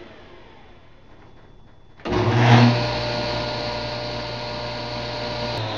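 Small Jet belt-driven bench table saw switched on about two seconds in. Its motor comes up to speed with a brief loud surge, then runs steadily with a low hum.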